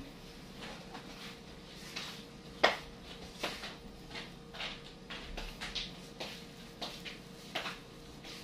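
Light, irregular taps and clicks, about one or two a second, from hands working a sticky graham-cracker mixture and shaping it into a ball; the sharpest click comes about two and a half seconds in.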